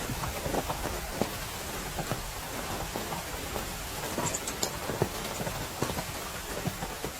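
Heavy rain falling steadily, a constant hiss with many large drops striking irregularly, several a second.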